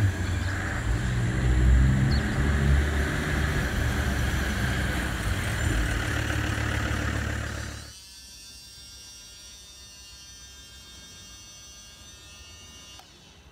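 Radio-controlled model vehicle running with a low engine-like rumble that stops abruptly about eight seconds in, leaving a fainter, steady high whine.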